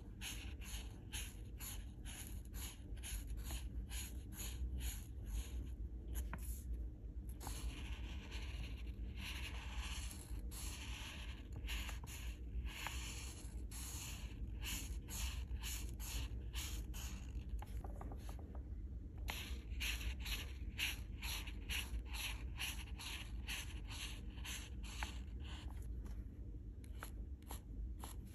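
Alcohol marker tips stroking across paper as a page is coloured in, short scratchy strokes at about two to three a second, with a few longer stretches of continuous scrubbing.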